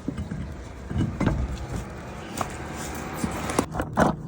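Metal knocks and clanks of tools and parts being handled during a front brake job on a jacked-up car, the loudest clank near the end, over a steady rushing noise that stops abruptly about three and a half seconds in.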